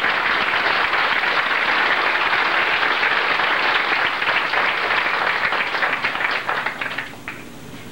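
Congregation applauding steadily, dying away about seven seconds in.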